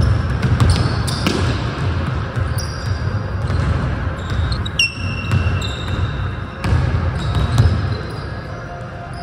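Basketball being dribbled on a hardwood gym floor, a run of repeated deep bounces, with short high squeaks of sneakers on the wood a few times as the players cut.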